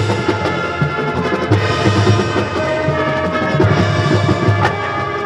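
High school marching band playing: the brass holds sustained chords over repeated low drum hits and sharp percussion strikes from the drumline and front ensemble.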